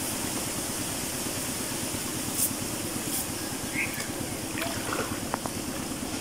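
Water splashing and dripping as a mesh fish trap is lifted and shaken out in shallow water, over a steady rushing background, with a few sharp knocks and clicks in the second half.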